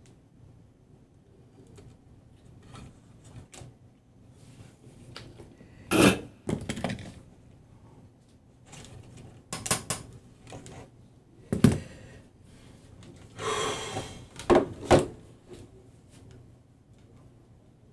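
Irregular knocks, clatters and short scraping sounds of tools and parts being handled on a workbench, with a handful of sharper knocks at uneven intervals.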